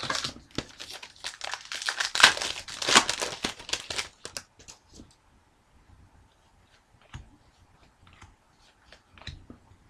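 Plastic wrapper of a 2011-12 Panini Certified hockey card pack crinkling as it is torn open and handled for about four and a half seconds, then sparse light ticks of the cards being handled.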